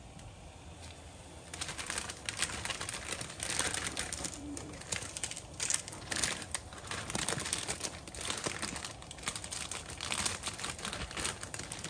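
Plastic instant-ramen packaging crinkling in uneven spurts as it is handled and opened, beginning about a second and a half in.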